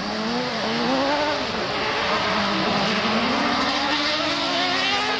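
Autocross cross buggies racing, several engines revving hard at once, their pitch rising and falling as the drivers accelerate and lift; near the end one engine climbs in pitch.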